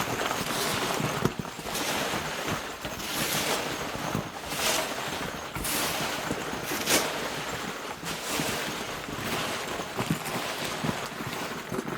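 A pile of small fabric drawstring bags, each holding a numbered slip, being mixed up by hand: a continuous rustling with irregular swells and a few sharper knocks.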